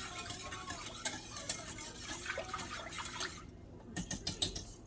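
Wire whisk beating a liquid sauce mixture in a bowl: a quick, scraping clatter of metal against the bowl. It stops about three and a half seconds in, and a few separate clinks follow.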